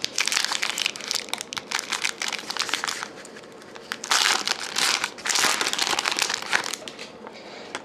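Foil trading-card pack wrapper crinkling as it is torn and peeled open by hand. The crackle comes in two spells: one for about the first three seconds, then a short lull, then a second from about four seconds in.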